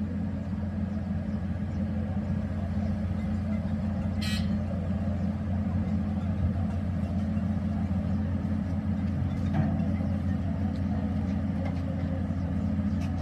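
Doosan hydraulic excavator's diesel engine running steadily under load as the hydraulics raise the boom and curl the stick. A brief high-pitched toot sounds once, about four seconds in.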